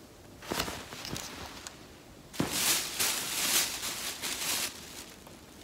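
Plastic shopping bag rustling as clothes are handled and pulled out of it, with a few soft clicks at first and the loudest crinkling for about two seconds in the middle.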